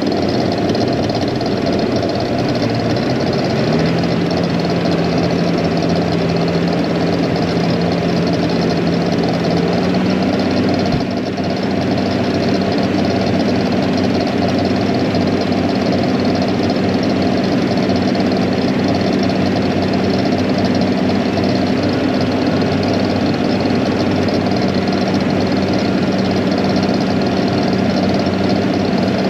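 Tractor engine running steadily while pulling a field roller, its pitch stepping up about four seconds in and again about ten seconds in.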